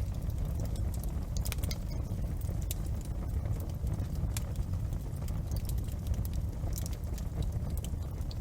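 Wood fire crackling in a fireplace: a steady low rumble of the flames with sharp pops and snaps at irregular intervals.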